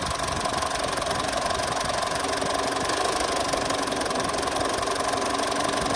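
Four-cylinder diesel engine idling steadily during a scan-tool active test that cuts out injector number 2, a check that the injector is firing.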